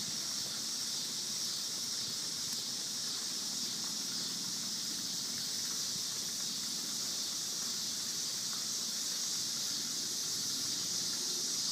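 A steady, high-pitched chorus of night insects.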